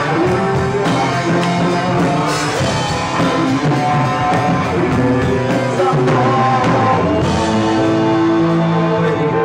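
Live rock band playing a slow love ballad: a singer's voice over guitar and a drum kit keeping a steady beat.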